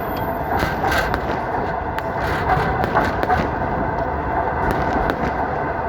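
Train running along the track, heard from inside the moving carriage: a steady rumble with irregular clicks and rattles from the wheels and coach.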